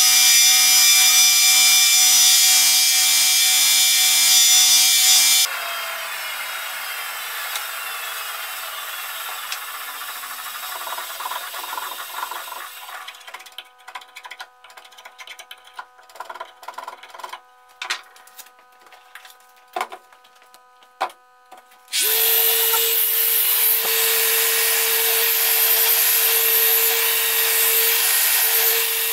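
Belt grinder running, switched off about five seconds in and winding down. Then light scrapes and clicks as the cleaver's wooden handle is worked by hand, until about 22 s in a Festool sander starts and runs steadily on the wooden handle.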